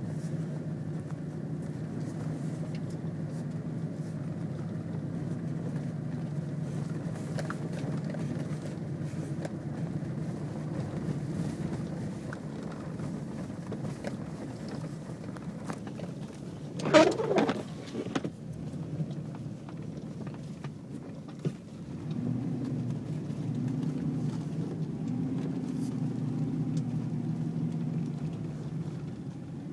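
Vehicle engine and tyre noise heard from inside the cabin while driving slowly over a snow-covered track: a steady low drone. A short, sharp, loud sound cuts in about halfway through, and the engine note changes in the last several seconds.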